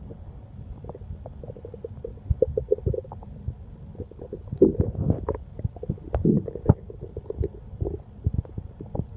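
Hungry, empty human stomach growling: a string of irregular gurgles, rumbles and small pops, loudest in a few stretches in the middle.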